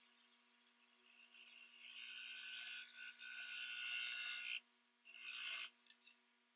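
Abrasive rubbing against cherry wood: one long scraping pass of about three and a half seconds, then a shorter pass of about half a second, followed by a couple of light clicks.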